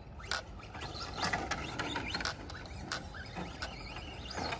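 Radio-controlled Team Associated DR10 car driving on a dirt track: a faint motor whine that rises and falls with the throttle, with scattered clicks and knocks from the car as it runs.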